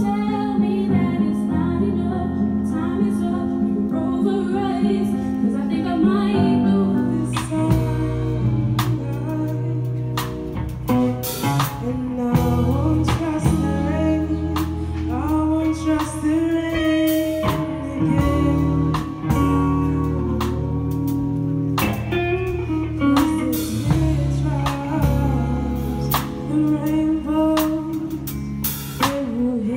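Live soul and R&B music: a woman singing lead over electric guitar and keyboard. About seven seconds in, a drum kit and bass come in and keep a steady beat under the singing.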